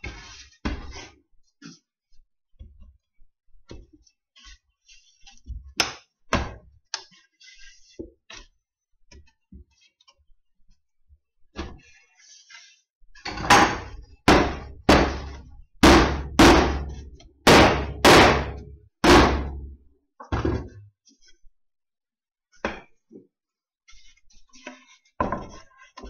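Wooden boards knocked and set down on a workbench during hive assembly. Light knocks and handling come first, then a run of about eight loud knocks on wood, roughly one every two-thirds of a second, in the middle.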